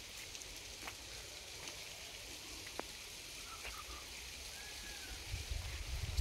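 Wind rustling through coconut palm fronds as a soft, even hiss with a few faint ticks. Near the end, wind begins buffeting the microphone with a low rumble.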